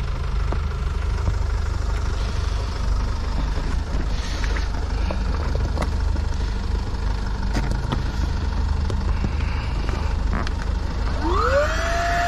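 A few sharp handling clicks over a steady low rumble, as the inflation hose is unplugged and fitted to another valve. About eleven seconds in, a handheld electric inflation pump starts up: its motor whine rises quickly in pitch, then levels off into a steady high hum as it begins pumping air into the boat's tube.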